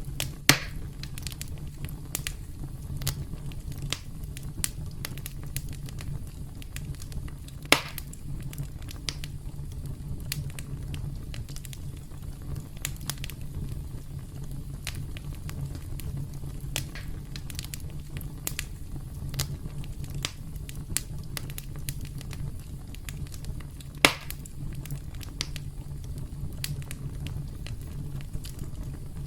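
Campfire burning with a steady low rumble and constant scattered crackles, broken by three loud pops of the burning wood, about half a second, eight seconds and twenty-four seconds in.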